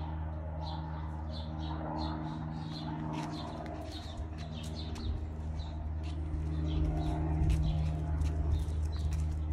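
Birds calling outdoors: a short high chirp repeated over and over, a couple of times a second, over a steady low hum.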